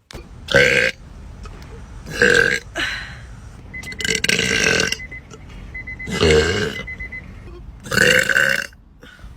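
A woman burping loudly about five times in a row, a second or two apart, the middle burp the longest.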